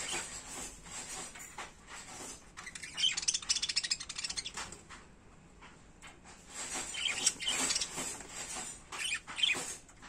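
A flock of budgerigars chirping and chattering, with two louder stretches of fast, dense chatter: one about three seconds in and another from about seven to nine and a half seconds.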